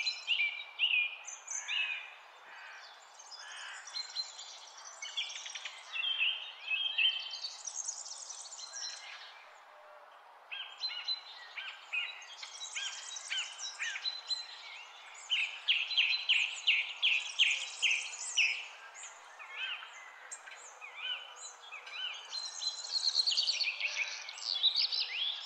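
Songbirds singing and chirping, a near-continuous mix of high chirps and rapid trills from several birds, over a steady background hiss; a short lull comes about ten seconds in.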